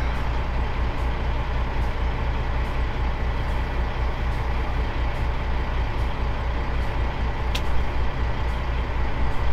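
Straight-piped Caterpillar 3406 diesel in a Kenworth W900 idling, heard from inside the cab as a steady low rumble.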